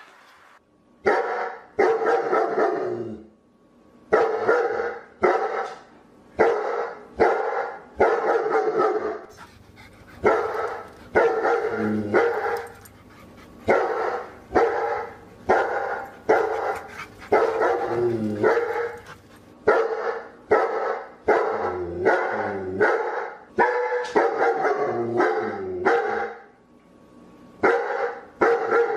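A dog barking over and over, about one bark a second. Some barks are drawn out and drop in pitch at the end, with a couple of brief pauses between runs.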